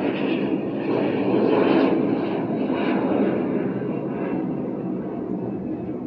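A passing vehicle's rumble, swelling to a peak about two seconds in and then slowly fading.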